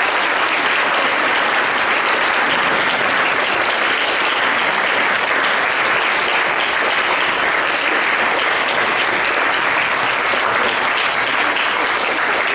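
Audience applauding steadily, a dense unbroken clatter of many hands clapping.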